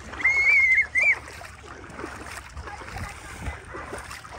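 A short, loud, high-pitched squeal for about a second at the start, then water splashing and sloshing around a giant inflatable water-walking ball as it is crawled and rolled through shallow sea water.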